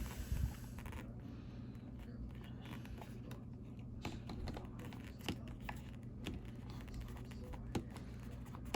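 Packaging handled during an unboxing: a crinkling, tearing rustle in the first second, then scattered small clicks and taps, over a steady low hum.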